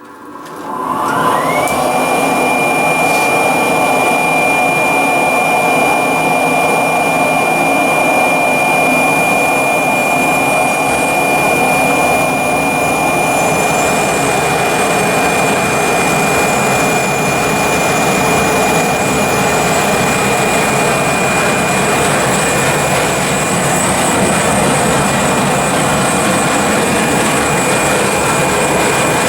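An electric power tool motor is switched on and spins up, its whine rising over about two seconds, then runs steadily at full speed with a high, steady whine over a loud rushing hum.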